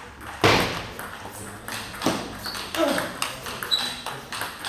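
Table tennis rally: the plastic ball clicks sharply off the bats and the table several times a second, each hit echoing briefly in the hall.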